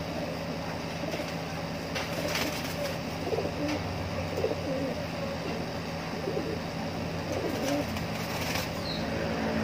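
Homing pigeons cooing in short phrases repeated every second or so, with a few light clicks and knocks from the wire cage as the birds are handled.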